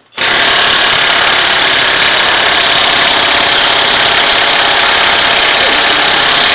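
Pneumatic impact wrench hammering without a break on a bolt in a manual transmission case. It starts sharply just after the beginning and holds at one steady loud level.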